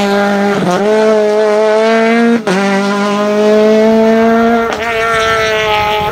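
Peugeot 208 R2 rally car's four-cylinder engine at high revs under full acceleration, its note climbing steadily and broken by three quick upshifts, at under a second, about two and a half seconds, and near five seconds in.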